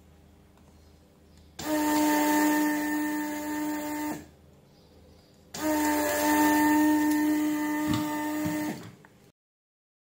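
Hot air rework gun blowing in two bursts, the first about two and a half seconds and the second about three and a half: a steady fan whine over a rush of air. A few light clicks come near the end of the second burst.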